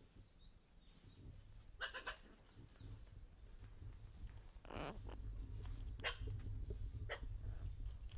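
An Amazon parrot right at the microphone: short high chirps repeating about twice a second, several sharp clicks, and a short harsh call about five seconds in, over a low rumble.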